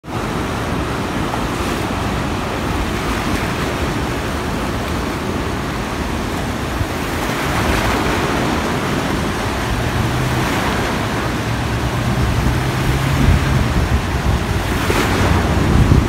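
Sea waves washing and surf breaking offshore, a continuous rushing wash that swells a little in the second half, with wind buffeting the microphone.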